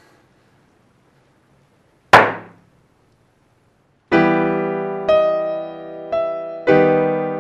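Near silence broken about two seconds in by a single loud hit that dies away within half a second, then slow piano music starting about four seconds in, each chord left to ring and fade.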